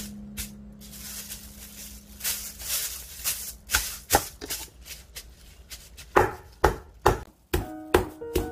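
Plastic wrap crinkling as hands smooth it over a slice of pork. From about six seconds in, a metal-headed meat tenderizer pounds the pork through the wrap on a wooden cutting board, about two strikes a second. Light background music comes in near the end.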